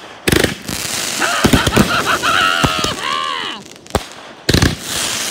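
Consumer fireworks firing: a sharp bang about a quarter second in, then a few seconds of crackling and high whistling tones as the shots fly, and another loud launch bang near the end.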